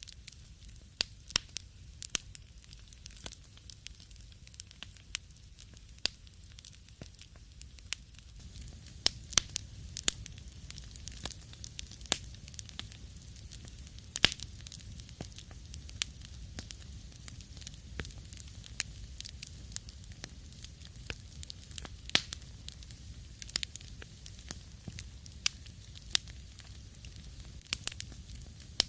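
Wood fire crackling in a fireplace: irregular sharp pops and snaps over a low, steady hiss of burning.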